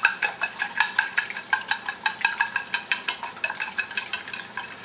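Hand whisk lightly beating eggs in a ceramic bowl: rapid, regular clinks of metal against the bowl.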